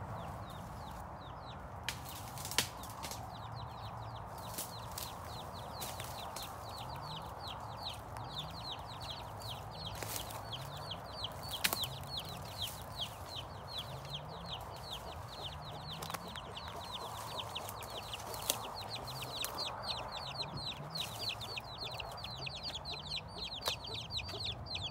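Chickens clucking while chicks cheep without pause in rapid high peeps, with a few sharp knocks.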